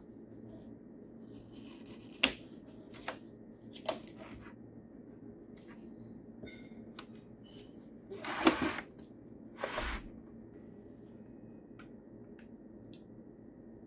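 Cardboard retail box and black plastic display case being handled and slid apart: scattered sharp clicks and knocks of hard plastic, with two louder rustling scrapes about eight and ten seconds in.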